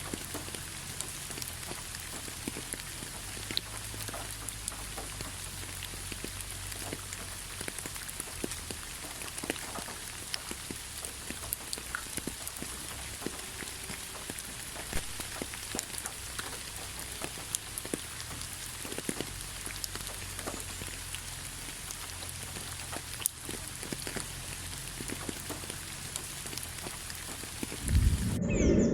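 Steady rain falling, with many individual drops ticking onto surfaces. Near the end comes a loud, low thump.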